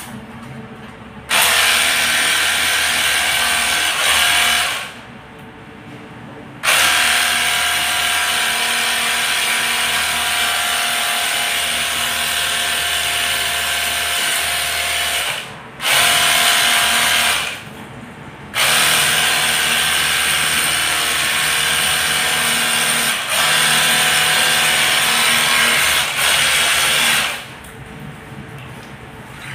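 Portable electric pressure washer running, spraying water into a split-type air conditioner's indoor unit. It runs in four stretches of a few seconds each, with a steady motor note, and cuts off sharply between them as the trigger is released.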